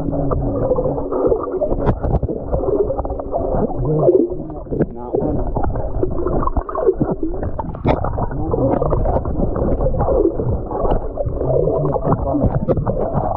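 Muffled underwater sound from a waterproof camera submerged in a pool: water moving and gurgling around the housing, with a steady hum at times and scattered sharp clicks.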